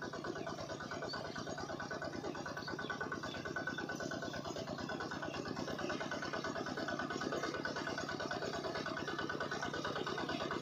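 Miniature model engine-driven water pump running steadily, with a fast, even beat.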